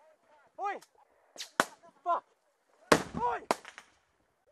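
Gunfire in a firefight: about half a dozen sharp shots, scattered at first, the loudest about three seconds in, followed by a quick cluster of cracks.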